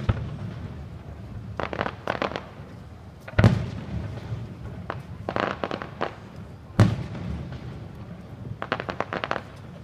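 An aerial fireworks display. Deep shell bursts go off about three and a half seconds apart, each with a rumbling tail, and short runs of sharp rapid pops come in between.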